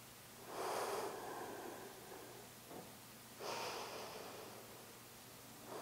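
A person's slow audible breaths through the nose, two of them about three seconds apart, each starting sharply and fading away.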